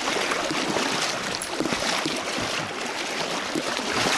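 River current rushing past, a steady hiss of flowing water.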